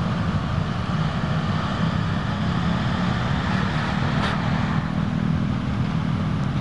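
Steady low outdoor rumble, like wind or distant traffic noise, with a faint brief click about four seconds in.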